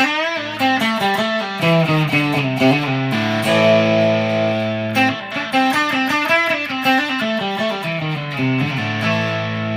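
G&L ASAT Classic Tribute electric guitar played through an amp's crunch channel, lightly distorted: a run of single notes and bends, ending on a chord left ringing about nine seconds in.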